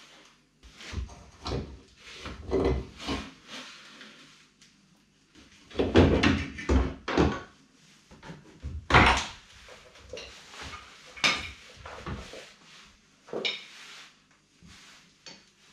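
Irregular clunks, knocks and scrapes as a steel front fender and a brake servo are worked loose and lifted off a VW Golf Mk2 body. The loudest knocks come about six and nine seconds in.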